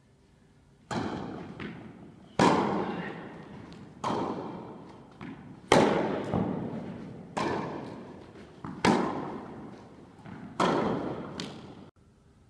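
Tennis ball struck by rackets in a rally, seven hits about every one and a half seconds, each ringing out in the long echo of a large indoor tennis hall, with fainter knocks of the ball bouncing between them.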